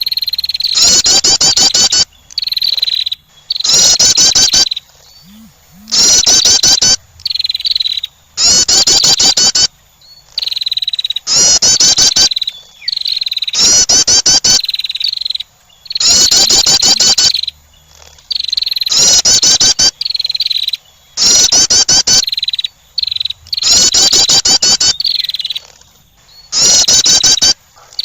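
Female wren's call played loudly as a bird lure: bursts of very rapid, rising chip notes about a second long, repeating every two seconds or so, with a thin high steady whistle between the bursts.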